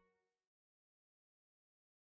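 Silence: the last faint tail of background music dies away in the first half second, then there is no sound at all.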